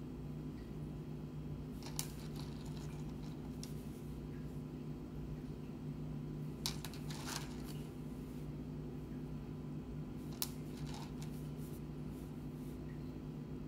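Wet rough opal pieces handled in the fingers, giving a few sharp clicks about two, seven and ten seconds in, over a steady low hum.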